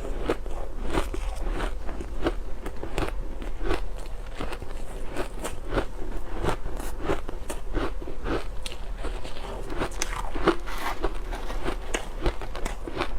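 Ice being bitten and chewed close to the microphone: a continuous run of crisp crunches, a few each second.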